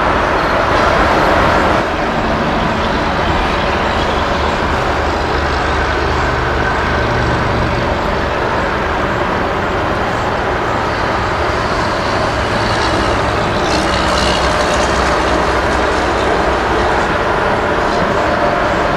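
Norfolk Southern diesel road-switcher locomotive running as it moves slowly through the yard on switching duty, its engine a steady low hum over a constant rumble. A few brief high squeals and clanks come a little past the middle.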